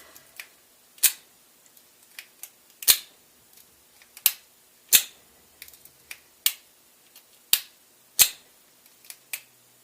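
A lock pick being zipped out of a pin-tumbler lock's keyway again and again, each pass ending in a sharp snap of the pins. There are about ten snaps, irregularly spaced roughly a second apart.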